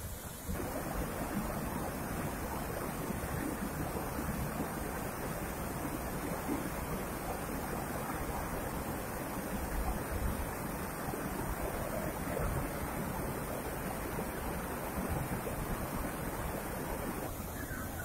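Steady, dense rushing of water from Thirparappu Falls, a wide waterfall pouring over rock ledges into a pool, getting louder about half a second in.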